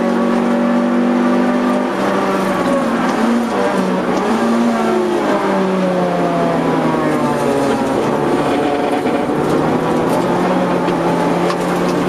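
Honda CR-X's four-cylinder engine heard from inside the cabin on track, its revs falling as the car brakes hard from high speed, with two brief rises in pitch as it downshifts, then a lower, slowly falling engine note through a slow corner.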